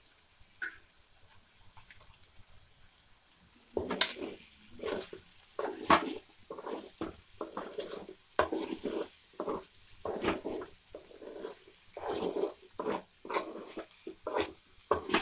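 Spatula stirring brinjal pieces in a metal kadai: quiet at first, then from about four seconds in a run of irregular scrapes and knocks against the pan as the spice powder is mixed through.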